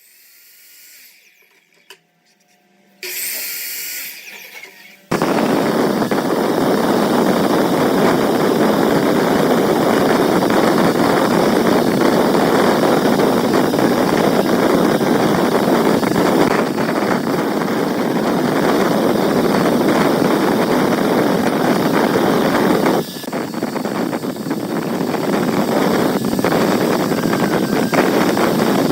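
A woodworking power tool running steadily and loudly, starting about five seconds in after a few quieter, short sounds, and dipping briefly about 23 seconds in.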